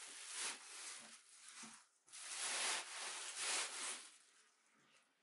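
Cardboard box rubbing and rustling as it is handled and shifted, with a brief pause about two seconds in, loudest just after, then fading out.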